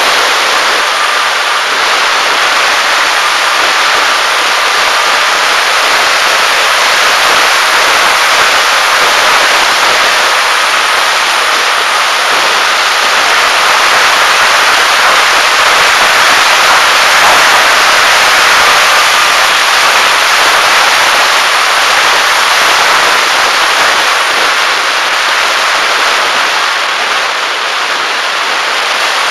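Wind rushing over the onboard camera of a Bixler electric RC foam plane in flight, a loud steady hiss, with the motor's whine faintly heard as a thin steady tone at times.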